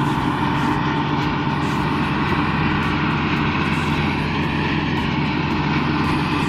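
Claas Dominator 86 combine harvester working through wheat: a steady diesel engine drone under the rushing noise of the cutting header and threshing gear.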